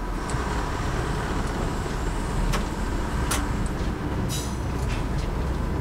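Class 101 diesel multiple unit under way: a steady rumble of its underfloor diesel engines and wheels on the track. A few sharp clicks and knocks are heard through it, about two and a half, three and a half and four and a half seconds in.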